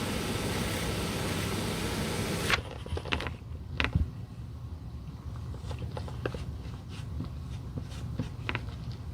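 A steady rushing noise from a running workshop tool that cuts off suddenly about two and a half seconds in, followed by scattered sharp clicks and light knocks of shoe and tool handling.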